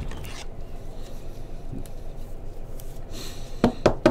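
Trading cards being handled at a table: faint rustling, then a quick run of about four sharp taps and clicks near the end as cards are set down.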